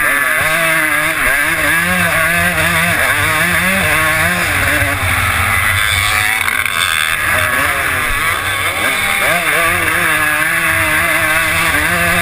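Suzuki RM250 single-cylinder two-stroke motocross engine revving hard, its pitch rising and falling over and over as the throttle is worked, picked up loud by a helmet camera.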